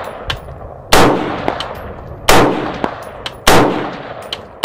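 AR-15 rifle fired standing offhand, three shots a little over a second apart with a fourth right at the end, each trailing off in a smear of echo. A fainter sharp ring follows each shot about half a second later: the bullet striking a steel target about 165 yards downrange.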